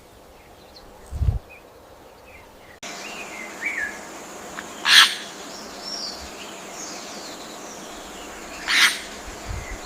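Forest ambience: small birds chirping over a steady hiss that starts abruptly about three seconds in, with two loud, short, harsh sounds about four seconds apart. A single low thump comes about a second in.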